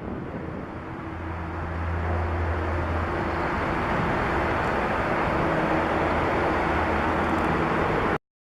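Boeing 767-300 jet airliner's engines at takeoff power: a steady roar with a low hum that grows louder over the first few seconds, then holds, and cuts off suddenly near the end.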